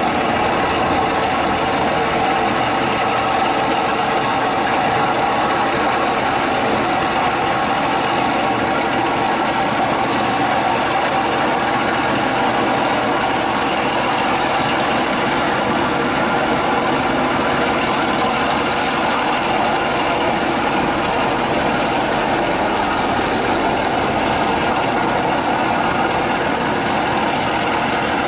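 Farm tractor engine running steadily under load, driving a rotary water-channel digger that churns through paddy mud and water.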